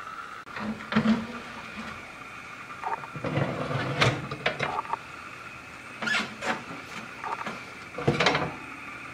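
Metal baking tray being slid out on an oven rack, with several scrapes and knocks of metal on metal, over a steady high hum.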